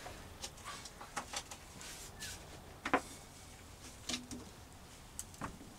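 Scattered light knocks and clatters of a folding table with tubular metal legs being lifted and folded, the sharpest knock about three seconds in.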